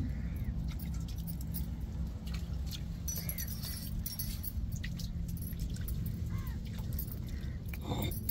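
Granite roller handled on a stone grinding slab (ammi) just after grinding ginger and garlic, with scattered scrapes and knocks of stone on stone and bangles jangling, over a steady low rumble.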